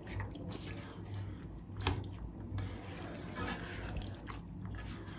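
Spoon stirring chana dal with freshly added water in a cooking pot, with a few soft clinks and knocks of the spoon against the pot, the clearest about two seconds in.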